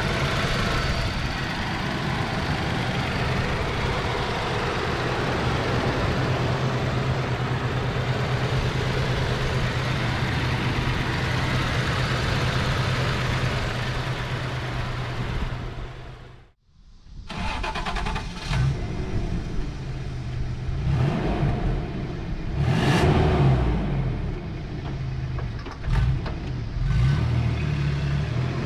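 1991 Toyota Pickup's 3.0-litre V6 running at a steady idle. After a short break about halfway, the engine speeds up and slows down several times, its pitch rising and falling.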